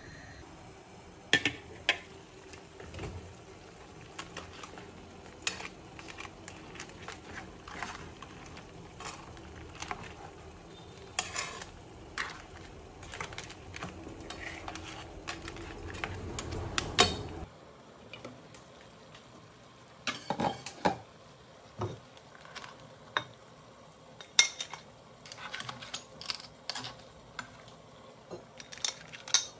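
Long metal kitchen tongs clinking, tapping and scraping against a frying pan as cooked lobster halves are turned and lifted out of tomato sauce. Sharp clinks come at irregular intervals over a low simmering hiss that stops a little past halfway.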